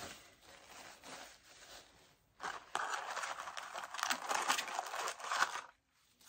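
Paper food wrappers and packaging rustling and crinkling as they are handled, faint at first and louder from a couple of seconds in, then stopping abruptly just before the end.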